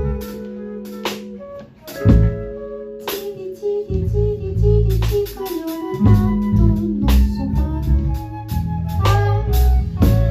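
Live improvised band music: drum kit with guitar and sustained low notes. The playing thins out briefly about a second and a half in, then a loud drum hit brings the full band back.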